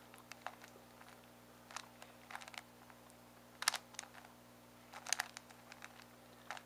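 Megaminx being turned by hand through an R-perm algorithm: an irregular run of quick plastic clicks and clacks as the faces turn, the loudest a little past the middle and again near three-quarters through.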